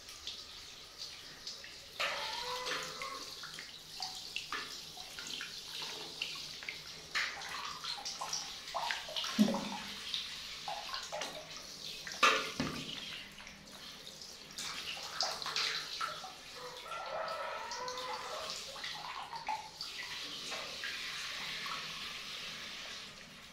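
Water spraying from a handheld shower head and splashing in shallow bath water, with many small irregular splashes.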